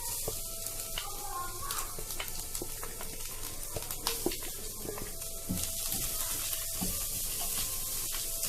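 Coconut sizzling as it fries in a little coconut oil in a hot pan, with the spatula clicking and scraping against the pan now and then as it is stirred.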